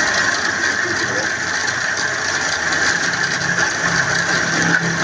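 Shop machinery running steadily with a fast, even mechanical clatter.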